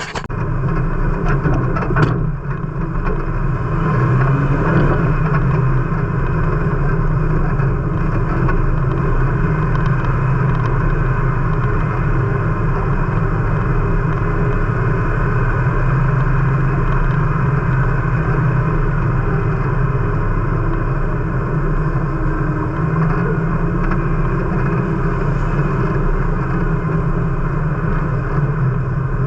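A Jeep's engine running steadily at a near-constant pitch, with a short knock about two seconds in.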